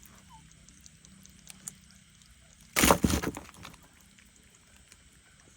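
A brief splash of water about three seconds in, tailing off quickly, over a faint low steady hum.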